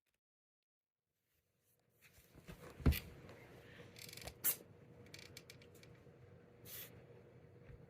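A house cat sneezing: short, sharp puffs of breath around the middle and again near the end, after a loud click, in a quiet room.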